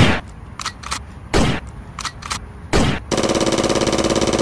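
Gunshot sound effects: three loud single shots about a second and a half apart, then a rapid burst of automatic fire lasting about a second and a half near the end.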